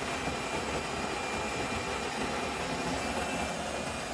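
Built-in grinder of a Miele CVA4062 espresso machine grinding beans for an espresso: a steady motor and burr whir that stops near the end.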